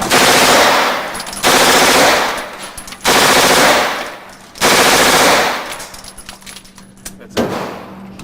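MP5 9 mm submachine gun firing four rapid automatic bursts of about a second each, each trailing off in echo, then a shorter burst near the end.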